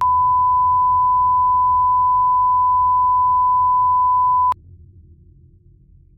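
Broadcast 1 kHz reference test tone of the kind that goes with colour bars: one steady pure beep held for about four and a half seconds, then cut off abruptly with a click, leaving a faint low hum.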